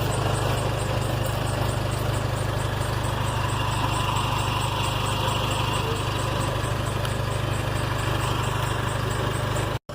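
A 2005 Scion xB's 1.5-litre four-cylinder engine idling steadily, with a faint, fast high ticking running through it. The sound cuts off suddenly near the end.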